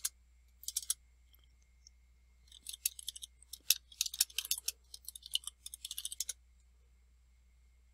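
Computer keyboard typing: a few keystrokes near the start, then a quick run of keystrokes from about two and a half seconds in to about six seconds, over a faint steady low hum.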